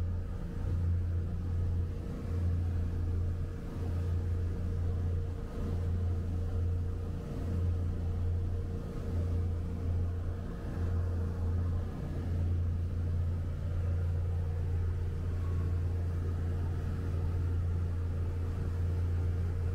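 Motor boat underway at speed: its inboard engine drones steadily, with a slight waver in loudness.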